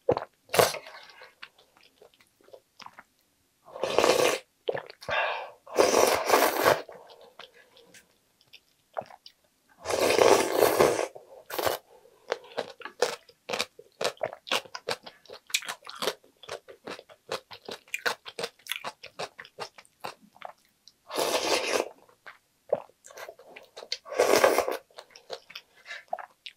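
Close-miked eating: crisp crunching and wet chewing of soup-soaked rice and cubed radish kimchi, with about half a dozen short slurps off a wooden spoon standing out.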